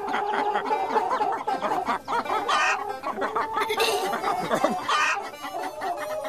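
Cartoon hens clucking and giggling over light background music.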